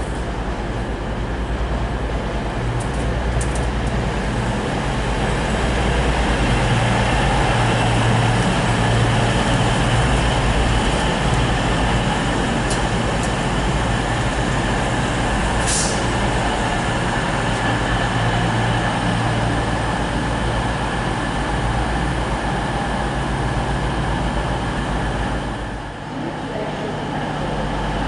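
Diesel engines of a Class 222 Meridian multiple unit running, a steady low hum, with a short hiss of air about halfway through. Near the end, after a brief break, the steadier low drone of a Class 170 Turbostar diesel unit takes over.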